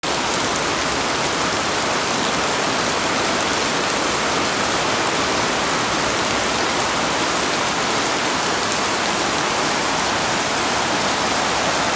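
Heavy tropical rain falling steadily on garden foliage and soil, a dense, even hiss with no let-up.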